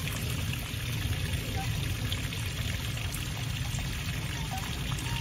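Steady trickle and splash of running water from the aviary pond.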